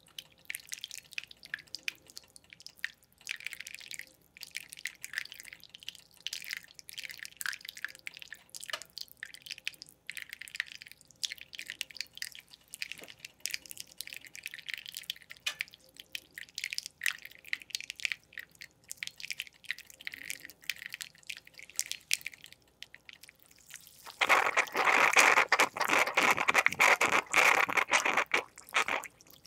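Bialetti Mini Express moka pot brewing: coffee drips and spits from its two spouts into the cups with soft, scattered crackles. Near the end this turns into a much louder, continuous sputtering gurgle, the stage when the water chamber runs low and steam forces through the last of the coffee.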